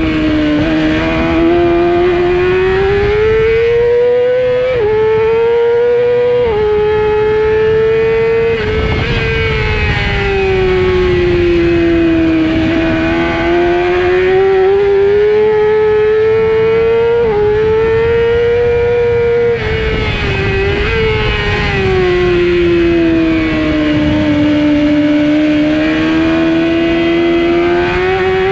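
Racing 600 superbike engine heard from onboard, running hard at high revs. Its pitch rises and sinks with the throttle through the corners and drops suddenly at gear changes, about five seconds in, near seven seconds, around seventeen seconds, and twice around twenty to twenty-one seconds.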